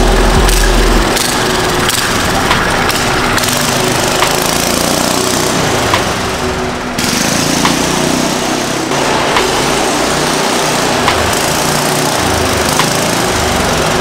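Small gas engine of a homemade mini bike running as it is ridden, a steady rasping engine note with a few brief changes in level.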